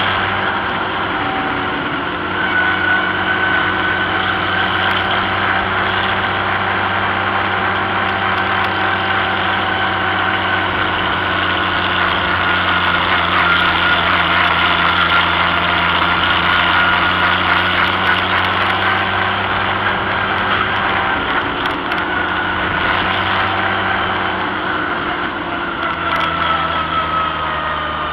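Vintage farm tractor's engine running steadily at road speed, heard from on board the tractor, its pitch dropping a little near the end.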